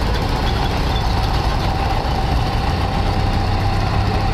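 An engine idling steadily, a low rumble with a constant hum over it.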